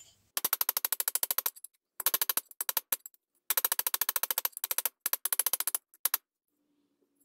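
Quick light hammer blows on a sheet-steel repair panel clamped over box tube in a vise, folding its edge over to 90 degrees. The strikes come in runs of about ten a second with short pauses between, and stop about a second before the end.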